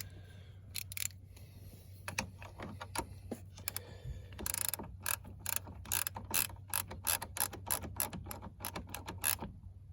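Ratchet wrench clicking in quick runs as the clamp nut on a new battery terminal connector is tightened. The clicks are sparse at first and come thick and fast over the second half.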